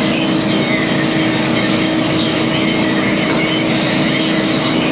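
Steady machine drone with a constant low hum, unchanging throughout.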